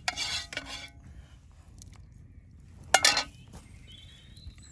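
Metal utensils clinking and scraping against a cast-iron dutch oven and a plate: a clatter at the start lasting nearly a second with a brief ring after it, and a second shorter clatter about three seconds in.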